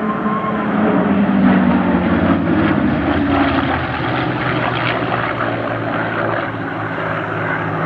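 Piston-engined propeller aircraft flying in a display, its engines running loudly and steadily with a rough, crackling edge, loudest a second or two in.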